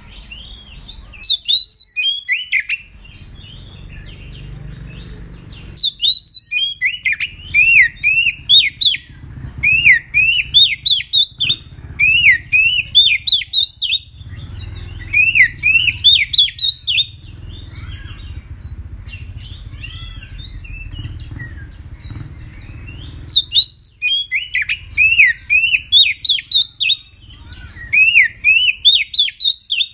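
Oriental magpie-robin singing in bout after bout of rapid, repeated downward-slurred whistled notes, with short pauses between bouts. This is the fierce, full song that bird keepers play as a lure to set other magpie-robins singing.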